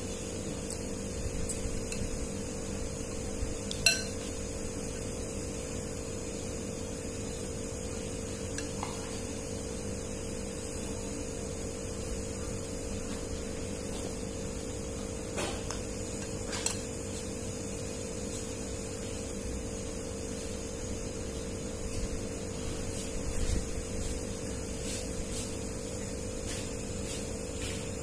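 Chopsticks and a spoon clinking now and then against a soup bowl during a noodle meal, the loudest clink about four seconds in, over a steady hum.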